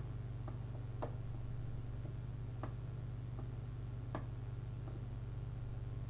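A few faint, scattered clicks, the clearest three spaced about one and a half seconds apart, over a steady low electrical hum. The clicks come from the computer's controls as a hex dump is paged through on screen.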